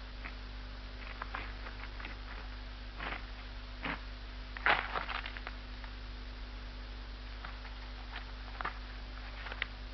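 Faint, irregular scuffs and taps of footsteps and scrambling on cave rock over a steady low mains hum, with one sharper knock about halfway through.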